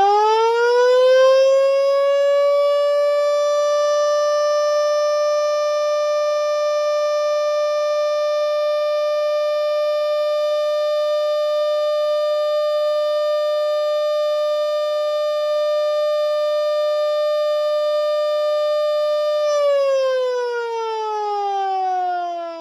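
Sireno Model D omnidirectional single-tone siren, a 24-volt DC siren run on 12 volts. It finishes winding up in the first couple of seconds, holds one steady tone for about seventeen seconds, then winds down in falling pitch near the end.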